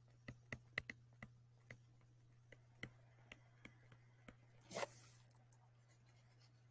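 Faint, irregular clicks and taps of a stylus writing on a tablet as digital handwriting is added, with one brief soft rush of noise about five seconds in.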